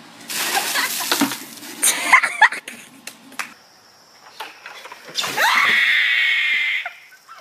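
Ice water dumped from a bucket splashes over a person, followed by short shrieks. A few seconds later, a long high-pitched scream is held for about a second and a half as ice water is poured over another person.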